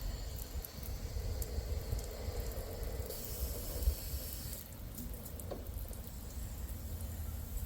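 Water running and spraying steadily into an inflatable kiddie pool.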